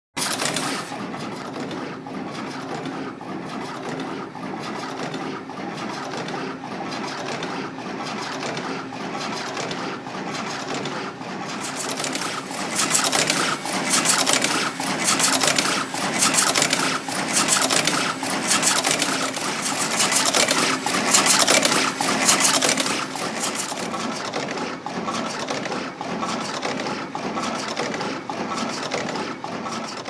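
Kodera C551SZ automatic wire-crimping machine running, its feeding, cutting and crimping strokes making a rapid, repeated mechanical clatter over a steady hum. The clatter grows louder and sharper for about ten seconds from a little before halfway.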